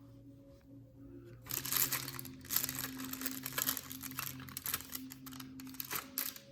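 Close-up scratchy rustling and scraping with many small clicks, starting about a second and a half in and stopping near the end, as a vintage Casio digital watch and a tool are worked at its stuck case back.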